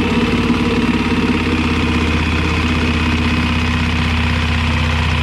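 Power saw running steadily at one constant pitch, its blade cutting into the boat's floor.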